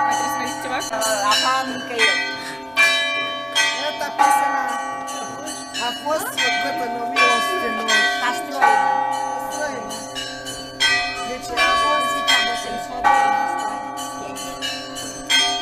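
Church bells being rung, several bells of different pitches struck in turn about once a second, each strike ringing on into the next.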